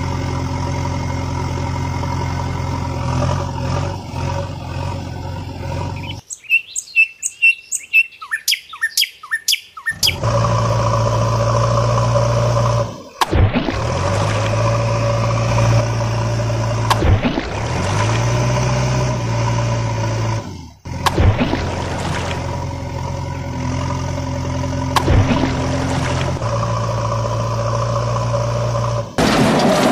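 Heavy diesel engine sound running in several edited clips that start and stop abruptly, its pitch sliding up and down a few times in the middle. For about four seconds, a few seconds in, the engine drops out and birds chirp in quick repeated calls.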